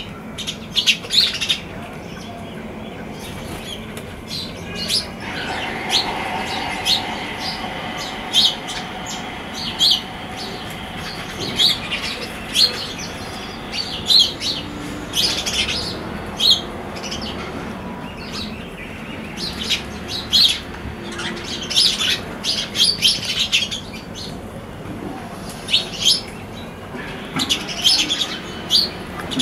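House sparrows chirping: many short, sharp chirps in irregular runs. A faint steady hum lies underneath for a few seconds from about five seconds in.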